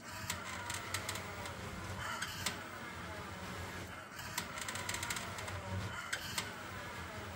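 LaviBot 2 automatic cat litter box running its cleaning cycle: the electric motor whirs, wavering in pitch, as the rake panel sweeps through the litter, with scattered sharp clicks.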